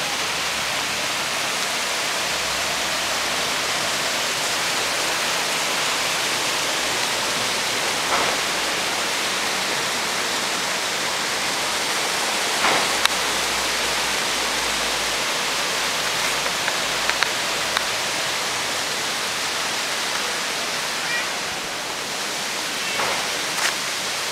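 Water pouring over a sloping weir makes a steady rushing hiss. A few faint short clicks sound around the middle and near the end.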